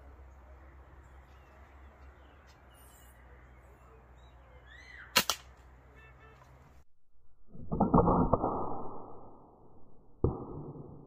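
Home-made 2x4 slingshot rifle with a mechanical trigger release being handled and shot: a single sharp click about five seconds in, then a short rustling burst with clicks, and a sharp snap near the end as the release lets the bands go.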